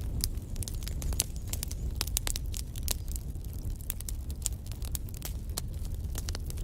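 Wood fire crackling in a fireplace: frequent sharp pops and snaps, several a second, over a low steady rumble of the flames.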